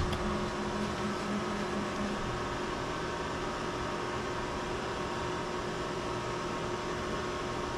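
CNC mill homing its Z axis upward: a motor tone for about the first two seconds as the head travels, over the steady hum of the machine's cooling fans and a running rotary three-phase converter.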